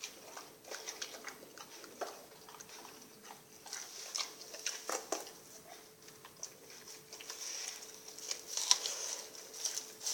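A Rottweiler chewing and biting into sardines: irregular wet crunches and clicks of teeth, coming thickest near the end.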